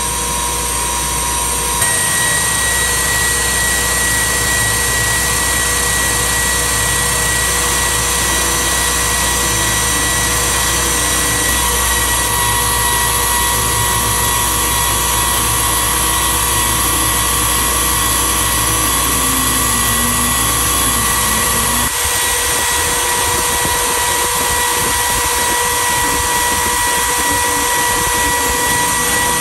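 Electric motorcycle with its rear hub-motor wheel spinning freely on a stand, giving out a loud, steady, jet-engine-like whine with several held tones. The sound shifts in character about 2, 12 and 22 seconds in.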